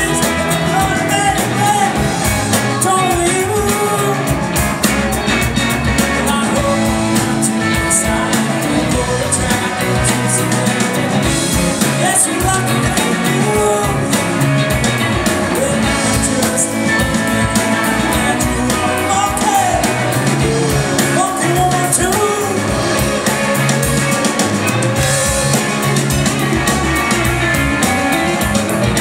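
A live rock band playing, electric guitars over drums and keyboards.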